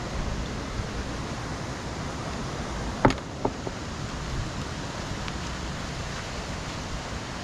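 Steady rushing of a fast, rain-swollen river, with two sharp knocks about three seconds in, the second fainter.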